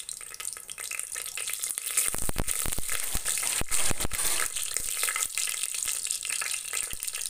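Whole spices (bay leaf, cloves, cardamom, shahi jeera and cinnamon) sizzling and crackling in hot oil and ghee in an aluminium pressure cooker, the first step of tempering. The sizzle grows louder about two seconds in.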